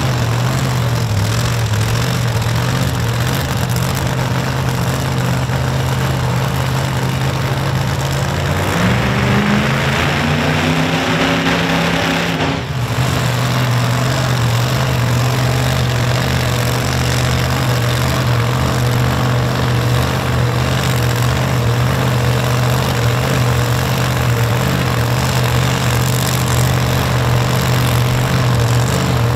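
Drag race cars' high-powered engines idling, loud and steady. About eight and a half seconds in, one engine revs up and holds higher, then cuts off abruptly near thirteen seconds, and the idle picks up again.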